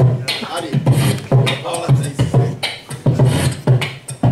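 A man beatboxing into a handheld microphone, amplified through a PA speaker. He keeps a steady beat of deep kick sounds about twice a second, with hissing snare sounds between them.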